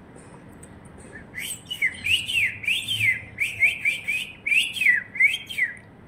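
Rose-ringed parakeet calling: a rapid run of high-pitched notes, each rising and falling in pitch, starting about a second in and lasting some four and a half seconds.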